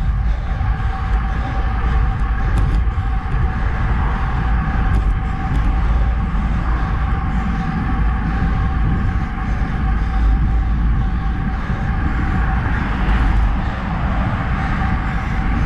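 Wind buffeting and tyre road noise from a road bike riding at about 32 km/h on Specialized Roval Rapide CLX64 carbon wheels, heard from a handlebar camera, with a steady high hum running through it. A car passes close by near the end.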